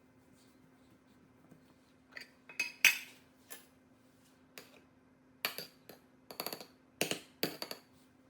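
Dishes and cutlery being handled: sharp clinks and knocks in two short clusters, the loudest a bit under three seconds in, over a faint steady low hum.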